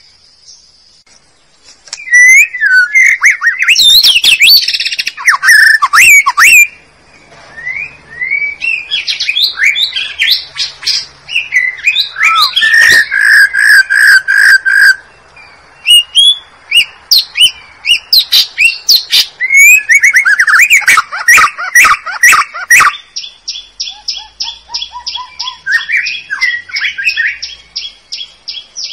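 White-rumped shama (murai batu) singing a loud, varied song of quick whistled phrases and glides. A short run of even repeated notes comes midway, and a fast high trill comes near the end.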